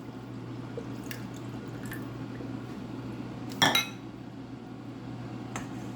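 Tamarind juice being poured out, a steady liquid sound. A sharp knock of a container comes about three and a half seconds in, with a few light clicks around it.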